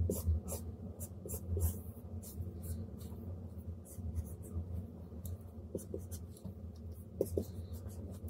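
Stylus of a Huion Kamvas Pro 19 pen display making scratchy strokes across the screen while inking a drawing, in quick, irregular runs; a low steady hum underneath.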